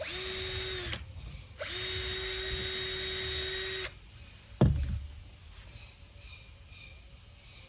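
Electric drill drilling holes through Mentos candies: two runs of a steady motor whine, a short one and then a longer one of about two seconds. A single sharp thump follows about halfway through.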